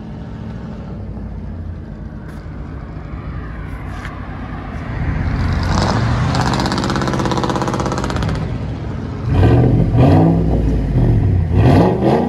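2012 Ford F-150's 5.0L Coyote V8 through a straight-piped dual exhaust, no mufflers, after the factory converters and Y-pipe. It idles, rises to a held rev about five seconds in for some three seconds, then gives several quick, louder revs in the last few seconds.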